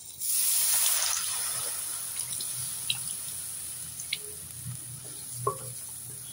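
Tamarind water poured into a hot pan of fried shallots, tomato and spice powder: a sudden loud hiss as it hits, easing gradually into a softer sizzle, with a few small pops.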